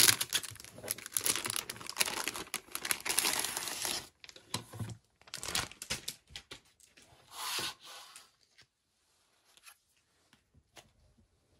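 Clear plastic sleeve crinkling and rustling as a spiral-bound calendar is pulled out of it: dense for about four seconds, then a few short rustles, then quiet with only faint ticks near the end.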